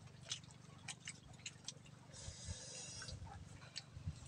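Faint, irregular clicks and taps of eating with the hands: fingers on plates and chewing, over a low steady hum, with a short hiss about two seconds in.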